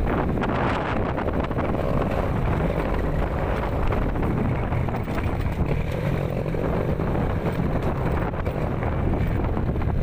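Wind rushing over the microphone with a motorcycle engine running steadily underneath, as when riding along a dirt farm track.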